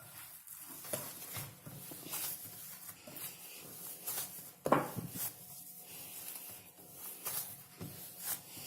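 Hands kneading roti dough: soft, irregular rubbing and pressing noises, with a few short knocks, the loudest a little past the middle.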